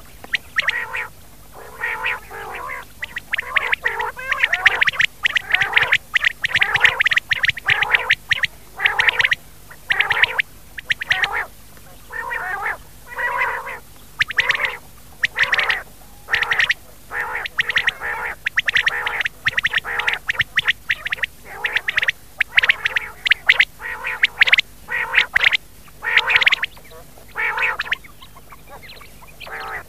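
Recorded rain quail (batair) calls played as a hunting lure: short runs of rapid harsh notes repeated about once a second with brief gaps.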